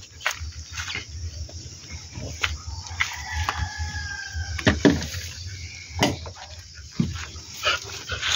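A rooster crowing once, a call held for about a second and a half starting about three seconds in, over scattered knocks and rustles from handling, the loudest just before five seconds in.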